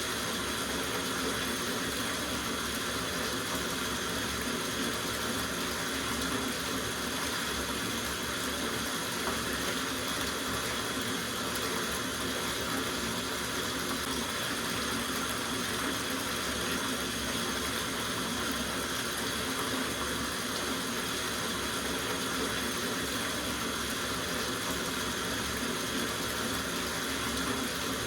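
Tap water running into a soaking bathtub: a steady, unbroken rush and splash of the stream into the tub.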